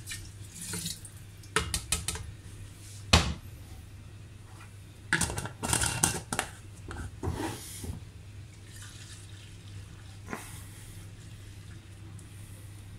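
Liquid pouring into a large glass jar stops just after the start, then a plastic lid clicks and knocks as it is fitted and screwed onto the jar, with one sharp knock about three seconds in the loudest sound. Then the alcohol and cornelian cherries swish inside the glass jar in several bursts as it is tilted and shaken.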